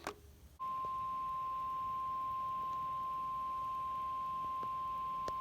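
NOAA Weather Radio warning alarm tone: a single steady 1050 Hz tone that starts about half a second in and holds at an even level. It is the signal that a warning broadcast follows, here a flash flood warning.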